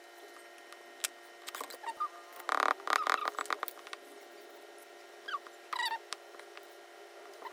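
Small hands-on crafting sounds: scattered light clicks and taps, a quick run of tapping about two and a half seconds in, and a few short squeaks near the end, over a faint steady hum.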